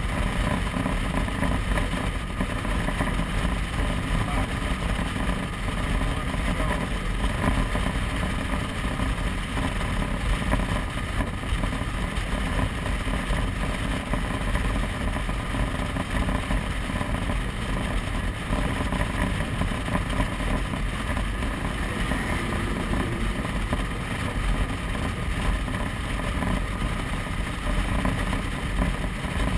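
Motorcycle riding at a steady speed: engine running with road and wind noise, even and unbroken throughout.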